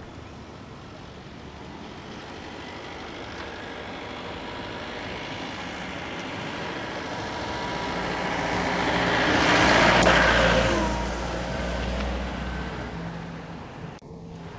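A road vehicle passing by: engine and tyre noise build slowly, peak about ten seconds in with a low rumble, then fade away.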